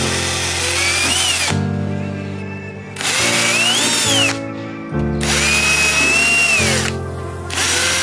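Cordless drill drilling small holes through the thin metal lid of a balm tin, run in four short bursts, its whine rising as it speeds up and falling as it slows each time. Background music plays underneath.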